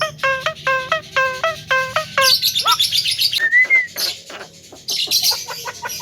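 Javan myna calling: a quick run of repeated ringing notes, about three a second. Then a harsh chattering burst, a short whistle rising and falling, and rapid clicking chatter near the end.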